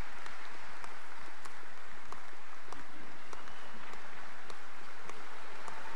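Audience applauding: a steady wash of many hands clapping, with single claps standing out here and there.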